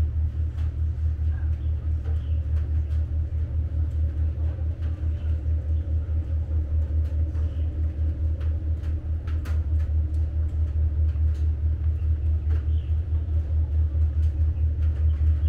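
Steady low rumble of wind buffeting an outdoor microphone, with faint distant shouts from players on a football pitch and a few sharp knocks, like a ball being kicked, about two-thirds of the way in.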